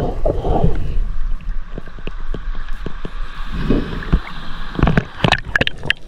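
Water sloshing and gurgling against a diving action camera at or under the sea surface, with many small clicks and a few sharper, louder crackling sounds near the end.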